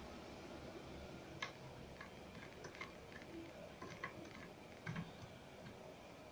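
Faint, irregular small clicks and ticks of a screwdriver turning and seating the screws of a motor shield's screw terminal as power wires are clamped in.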